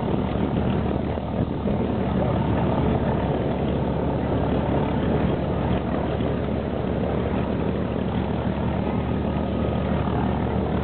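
Distant propeller drone of P-47 Thunderbolt fighters' radial engines as the formation flies overhead, a steady even hum.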